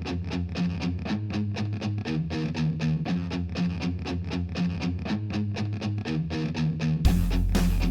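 Intro music: an electric guitar playing a riff over a quick, even pulse. About seven seconds in the music fills out with a heavy low end.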